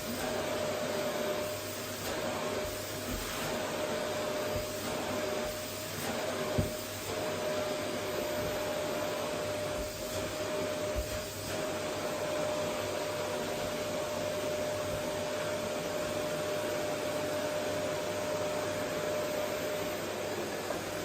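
Vacuum cleaner running steadily, a constant motor whine over its rushing suction noise, the level swelling and dipping slightly. Two short knocks sound, one at the start and one about six and a half seconds in.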